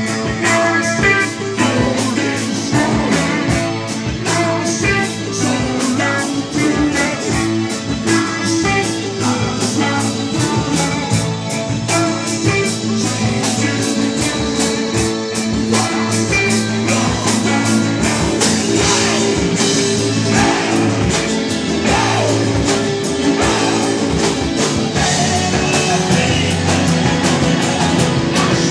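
Live rock band playing a song: electric and acoustic-electric guitars, keyboard and a drum kit keeping a steady beat, with voices singing.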